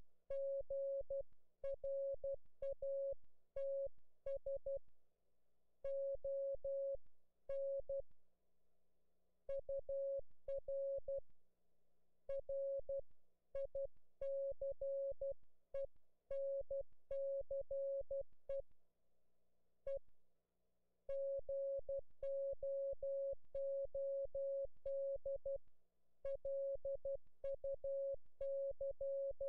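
Ham radio Morse code (CW) from an Elecraft K3 transceiver on the 10-metre band: a single steady beep tone keyed on and off in dots and dashes, with short pauses between groups. A faint steady hum lies underneath.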